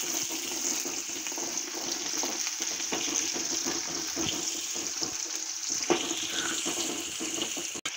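Small onions, curry leaves and dried red chillies sizzling and crackling in hot groundnut oil in a kadai as they are stirred and sautéed with a spatula, with a knock of the spatula against the pan about six seconds in.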